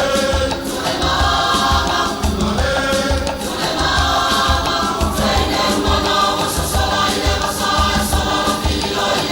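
Group of voices singing a Samoan song together in chorus over a steady low beat of about two strokes a second.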